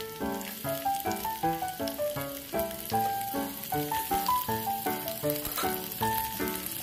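Background instrumental music with a stepping melody, over a faint sizzle of shallots, garlic and chillies frying in hot oil in a wok.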